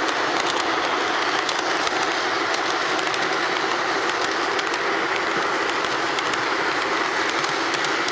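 Model train cars rolling steadily past on the layout track: a continuous rolling hiss with quick light clicks from the wheels on the rails.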